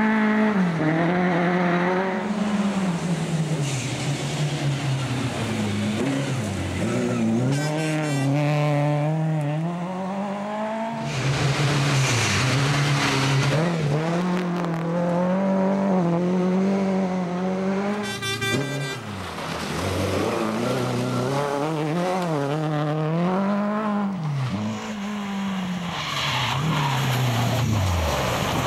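Classic Lada saloon rally car driven hard on gravel: its engine revs rise and fall again and again through gear changes and corners, with tyres skidding and scrabbling on the loose surface.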